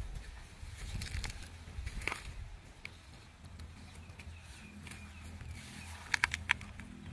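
Dry grass and stalks rustling and crackling as animals move through them, over a steady low rumble. A quick cluster of sharp clicks comes about six seconds in.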